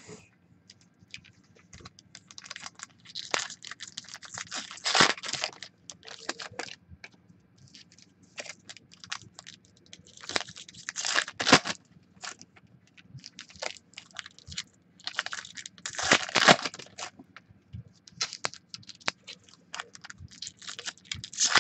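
Foil trading-card pack wrappers being torn open and crinkled in hand. The crackling comes in four bursts about five seconds apart, with scattered lighter crinkles and clicks between.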